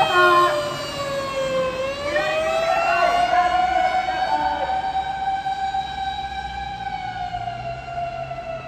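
Fire rescue truck's electronic siren wailing. The pitch slides down for about two seconds, climbs back up over the next two, then holds fairly level while it slowly fades.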